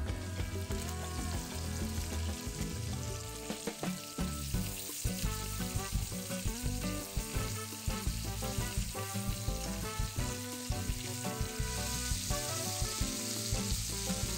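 Chicken livers frying in hot oil in a nonstick pan, a continuous sizzle that grows brighter near the end. Short clicks come as the livers are turned with a fork and spatula.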